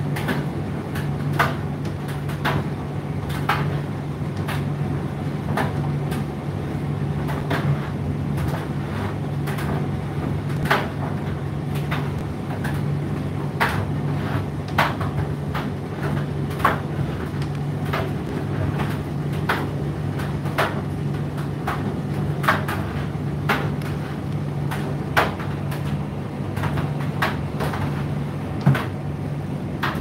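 Indesit IDC8T3 condenser tumble dryer running mid-cycle: a steady motor hum with irregular knocks and clicks as the load tumbles in the turning drum.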